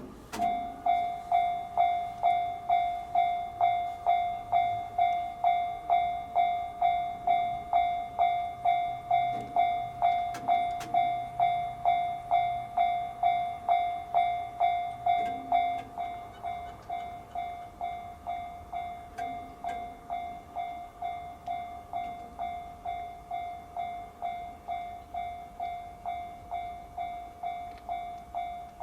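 Japanese railway level crossing warning bell starting up, ringing in an even, repeated ding about twice a second. It drops to a quieter level about halfway through.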